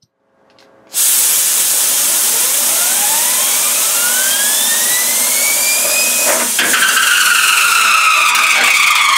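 Compressed air hissing loudly through a spinning wheel bearing. The bearing's whine climbs steadily in pitch as it spins up, then about six seconds in a knock cuts it off as the bearing comes loose and drops. It goes on whining, the pitch slowly sinking, as it spins and rolls about inside the steel wheel rim in the air blast.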